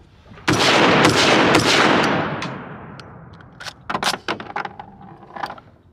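Gunfire from an AR-style pistol that takes AK-pattern magazines: several rapid shots about half a second in, their echo trailing off over a couple of seconds. From about three and a half seconds in, a string of quieter sharp cracks follows.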